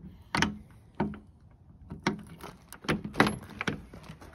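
Key working in the chrome door lock of a 1960 Rover P4, giving a string of sharp metal clicks and clunks, then the door latch releasing as the door is pulled open.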